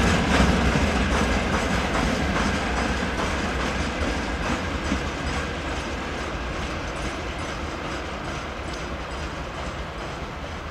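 Freight train of tank wagons rolling past and away over the rails, the wheels clicking over the rail joints, slowly fading as the train recedes.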